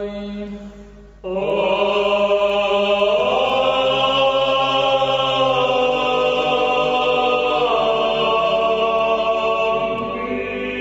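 Background music of slow, chant-like singing with long held notes over a steady drone. It briefly dips about a second in, then a new held chord swells in and more notes join it.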